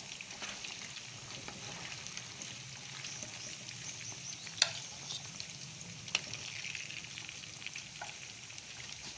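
Marinated chicken pieces deep-frying in hot oil, a steady crackling sizzle. Two sharp clicks stand out, about four and a half and six seconds in.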